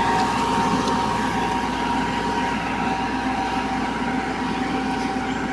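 Combine harvester running steadily under load: a continuous machinery din with a steady high whine over it.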